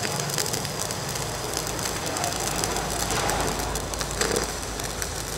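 Two stick (MMA) welding arcs burning at once on 4 mm electrodes, fed by Protech MK200 and Jacpro MMA325 mini inverter welders. The arcs give a steady, dense crackling sizzle.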